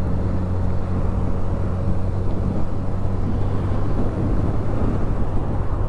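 Honda CB1000R's inline-four engine running at a steady cruise through its stock exhaust, heard from on the bike, a low even drone with no change in revs.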